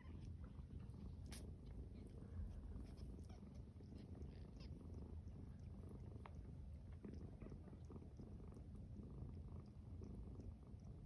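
Cat purring, a steady low rumble, quiet throughout, with a few faint clicks.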